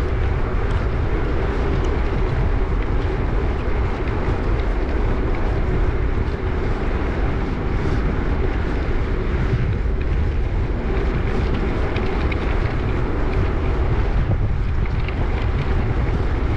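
Steady wind rush over the microphone of a gravel bike rider moving along, with a faint steady hum underneath.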